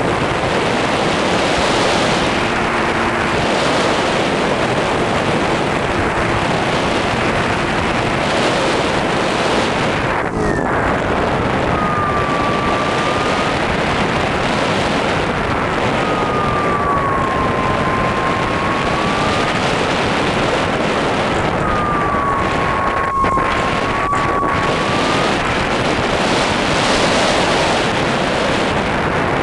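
Wind noise rushing over the onboard camera's microphone of a brushless electric RC plane in flight, with the motor's thin whine; from about a third of the way in, the whine wavers up and down in pitch.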